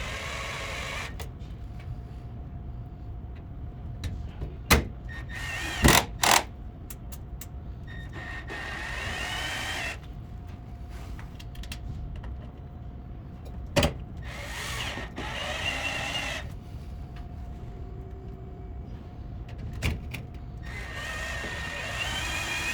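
Cordless drill/driver running in four short bursts of about two seconds each, its motor whine gliding up in pitch as it drives small #6 screws partway into a window's trim ring. A few sharp clicks fall between the bursts.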